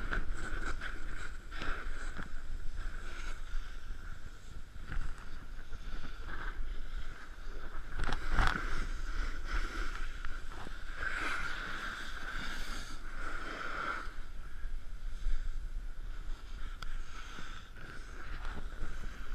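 Snowboard sliding and carving over groomed snow, a continuous scraping hiss that swells on harder turns about eight seconds in and again from about eleven to fourteen seconds, with wind buffeting the camera microphone underneath.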